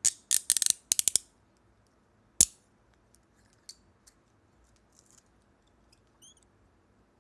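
Steel police handcuffs clicking as they are worked: a quick run of ratchet clicks in the first second or so, one sharp click about two and a half seconds in, then faint scattered ticks and a brief light metal ring.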